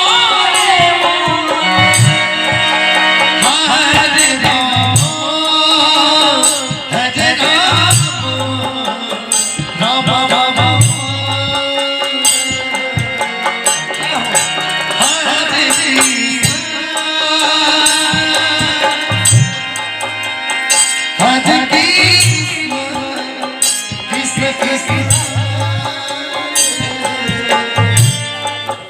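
Kirtan: devotional singing with tabla and hand-percussion accompaniment, a steady drum beat under a wavering sung melody.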